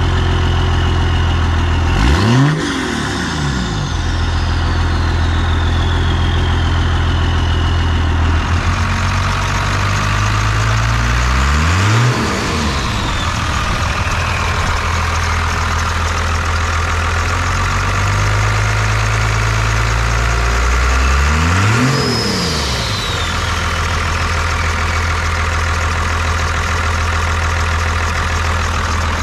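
12-valve Cummins 5.9-litre inline-six turbo diesel in a 1993 Dodge Ram 250, idling and blipped three times about ten seconds apart. Each rev rises and falls within about a second. After the first and last revs the turbo whistles, its pitch falling slowly over several seconds as it spools down.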